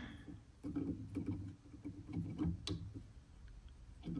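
Faint handling noise: fingers moving wires and parts inside a metal equipment chassis, with scattered light clicks and rustles.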